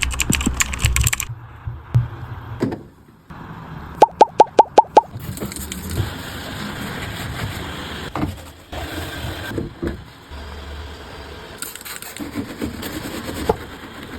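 Six quick electronic beeps from a washing machine's control panel a little after four seconds in. Around them are handling and rustling noises that change abruptly several times.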